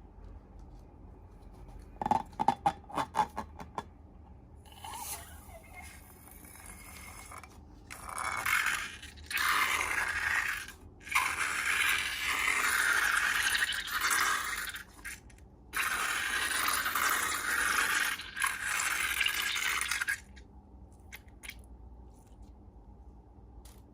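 Slime being worked by hand: a quick run of small clicks and taps, then long stretches of scraping, crackling noise broken by short pauses.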